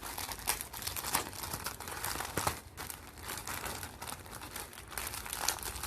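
Parcel packaging crinkling and being torn open by hand, a continuous run of rustles with sharp rips and crackles.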